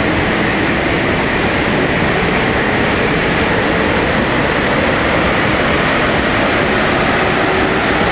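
Audi Q7 3.0 TDI V6 diesel pulling under load on a chassis dynamometer during a power run, its note creeping slowly up in pitch beneath a loud, steady rush of noise.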